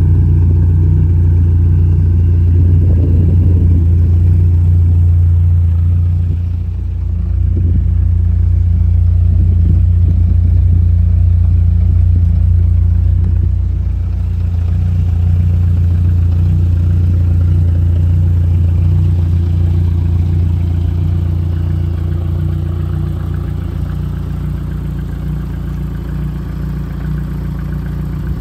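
BMW E30 M3 race car engine idling steadily, its loudness dipping briefly twice.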